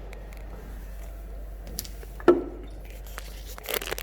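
Handling noise of a power cable being swapped: one sharp knock about halfway through and a few clicks near the end, over a low steady hum.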